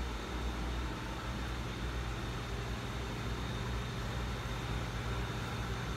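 Steady low hum with an even hiss underneath, unchanging throughout, with no distinct events.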